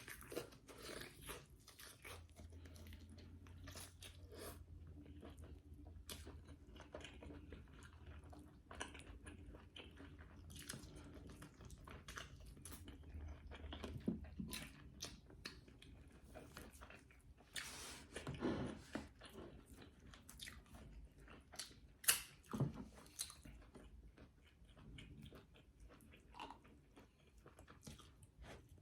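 Close-up chewing and biting of egusi soup with fufu and turkey neck bone: wet mouth sounds with crunching and many short, sharp clicks, and a few louder bites about 18 and 22 seconds in.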